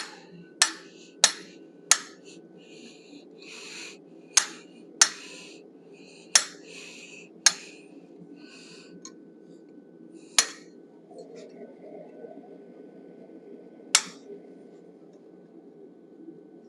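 Hammer blows on an eighth-inch hand fuller held against a steel workpiece, cutting in a bison head's brow line and eyebrows: about ten sharp metallic strikes. The first several come quickly, then they spread out, with the last two several seconds apart.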